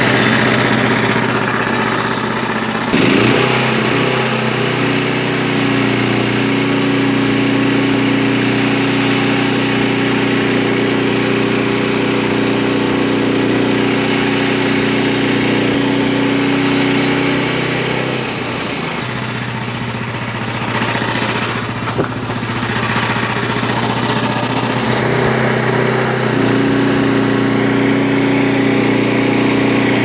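Small gas engine of a Frontier OS23 portable band sawmill running steadily as the band blade cuts through a white oak log. The engine note shifts about three seconds in and sags lower for several seconds around the middle, with a single sharp knock partway through.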